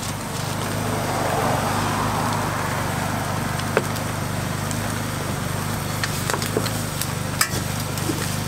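Cooking at a flat-top street-food griddle: a steady low mechanical hum, with a few sharp clicks of a metal spatula on the griddle as the egg sheets are worked and folded.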